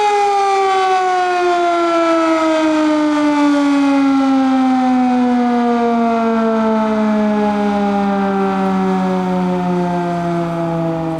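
Darley 3V8 outdoor warning siren winding down after sounding the attack signal: one rich tone with many overtones, its pitch falling slowly and steadily as the rotor coasts down.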